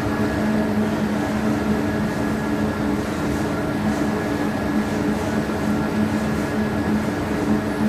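Steady hum of industrial machinery in a factory hall, made up of several steady tones that hold without change.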